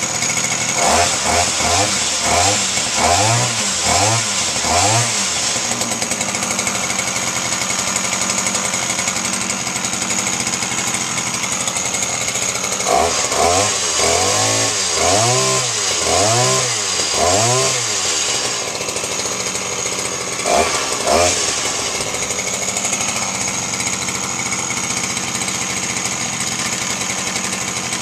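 Small 34cc two-stroke engine of a long-reach multi-tool with the hedge trimmer attachment fitted, running steadily and revved in quick throttle blips. There are about six blips near the start, another six about thirteen seconds in, and two more near twenty-one seconds, each rising and falling in pitch.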